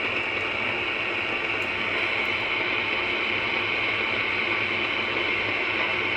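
AM radio tuned to 640 giving a steady static hiss: the station is barely coming in.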